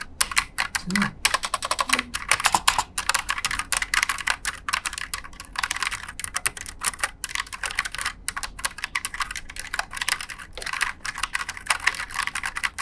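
Fast, continuous typing on a Tsunami MKS-68 low-profile mechanical keyboard with brown switches, a dense run of keystroke clicks.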